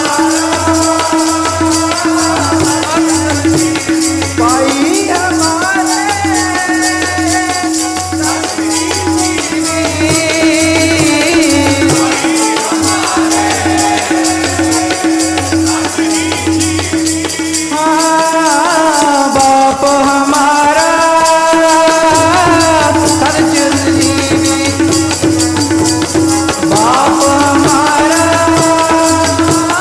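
Sikh kirtan: a shabad sung in a gliding melody over a steady pitched drone, with a fast rattling percussion beat and a low drum; the drum drops out briefly about two-thirds of the way through.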